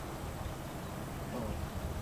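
Outdoor wind noise: an uneven low rumble of wind buffeting the microphone, with a faint short rising call about one and a half seconds in.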